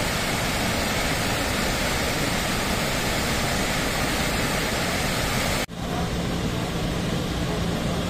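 Muddy floodwater pouring over an embankment: a steady, loud rush of water. About two-thirds of the way through it cuts abruptly to a backhoe loader's diesel engine running with a steady low hum over the sound of water.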